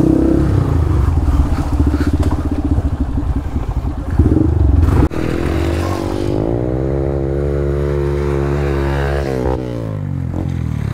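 Off-road motorcycle engine revving hard under load, uneven at first with a sharp burst about four seconds in and a sudden dip just after. The revs then climb and hold steady for a few seconds before dropping near the end.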